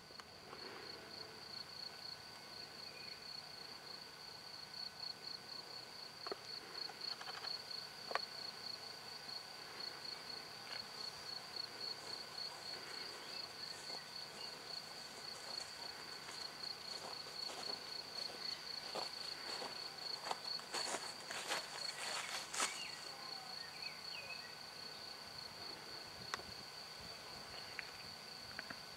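Field insects, crickets or bush-crickets, singing a steady, fast-pulsed, high-pitched trill without a break. A few brief rustles and clicks come through it, most of them about two-thirds of the way in.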